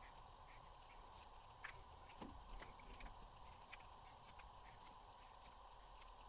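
Near silence: faint, irregular small ticks and scratches of a paint pen tip marking paper, over a faint steady hum.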